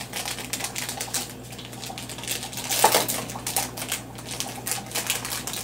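Plastic snack packet crinkling and crackling as it is handled and opened, in a quick run of small clicks, with a louder crackle about three seconds in.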